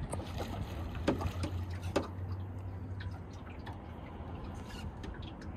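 Water lapping and dripping against a small boat's hull over a low steady hum, with a few short clicks in the first two seconds.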